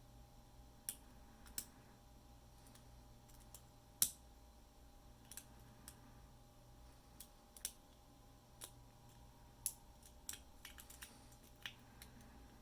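Lock pick and tension wrench working the wafers of a 10-wafer padlock: scattered light metallic clicks at irregular intervals, the loudest about four seconds in, over a faint steady hum.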